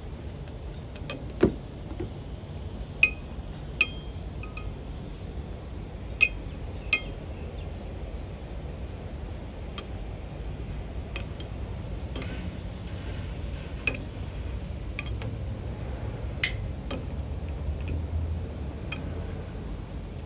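Steel spanner clinking against the hydraulic fittings and pipework of a tipper truck's pump as a fitting is worked on: scattered sharp metallic clinks, most of them in the first seven seconds, over a steady low hum.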